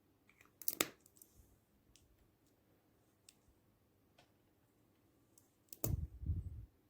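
Slime being worked by hand, giving a cluster of sharp sticky clicks and small pops just under a second in, a few faint ticks, then a louder, lower burst of clicks and pops about six seconds in.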